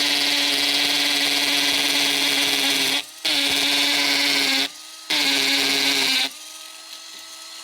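Power drill running steadily, stopping briefly twice, then running on more quietly for the last second or so.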